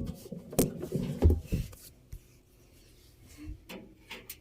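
Handling noises on a washing machine: a few light knocks and dull thumps in the first second and a half, then faint rubbing as the door rubber is handled.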